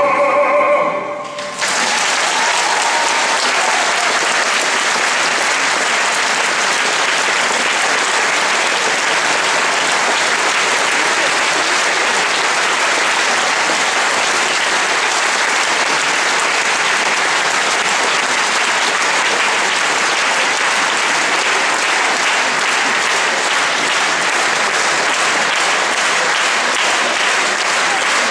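An operatic baritone's held final note with orchestra ends about a second in, and a large audience breaks into steady applause for the rest of the time.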